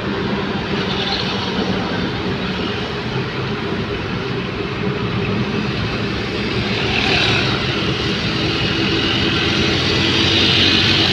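Moving vehicle heard from aboard: a steady low engine drone under a rushing wash of road and air noise, growing somewhat louder over the last few seconds.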